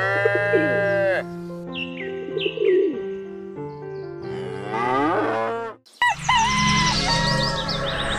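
A cow mooing twice, once at the start and again about five seconds in, with birds chirping between and after, over steady background music.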